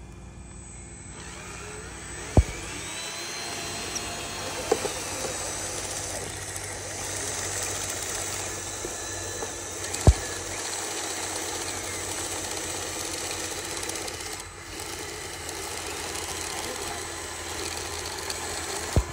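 Radio-controlled toy dump truck and crawler bulldozer running: a steady mechanical whir of small motors and gears. Three sharp clicks cut through it, about two seconds in, about ten seconds in, and at the very end.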